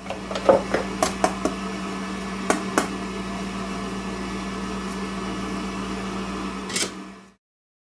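A small motor running with a steady hum, with a string of sharp clicks and knocks in the first three seconds and another near the end.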